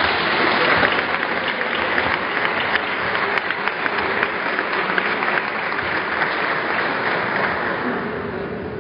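Applause from a room of people and the panel at the table: many hands clapping at once, dying away near the end.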